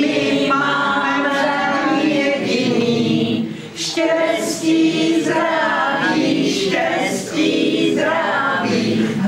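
A group of people singing together without instruments, women's voices most prominent.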